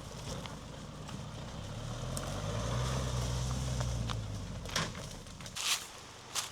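Pickup truck engine on a rough off-road track: a low engine hum swells for a couple of seconds and fades away, followed by a few sharp knocks near the end.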